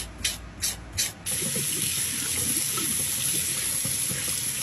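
A few short rasping strokes of a nail buffer block on a fingernail, then, just over a second in, a faucet running steadily as water pours over hands in a stainless steel sink.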